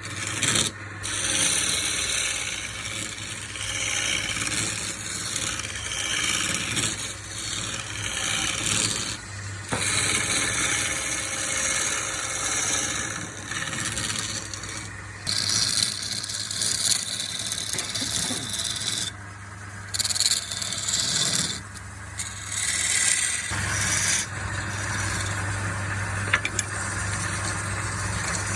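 Wood being worked with a hand or power tool: a continuous rasping, scraping sound in stretches of a few seconds, broken by short pauses, over a steady low hum.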